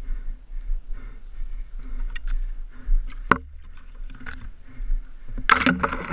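Mountain bike riding over rough trail, heard from a helmet camera: wind rumbling on the microphone under a rattle of bike and tyres, with a sharp knock a little past halfway and a louder burst of rattling near the end.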